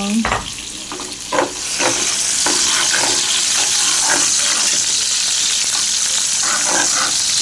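Shallots, garlic and ginger frying in hot oil in a wok, sizzling steadily. A few knocks of a utensil come first, and the sizzle swells about two seconds in as the sauté gets going.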